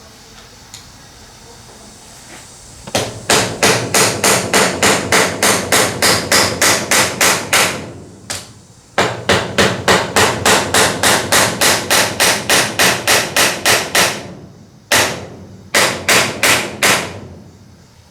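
Hammer striking cutler's rivets, pounding the solid male shank into the female tube to set them through a knife's handle scales. Starting about three seconds in, two long runs of quick, even blows at about four a second, broken by a short pause, then a few single blows near the end.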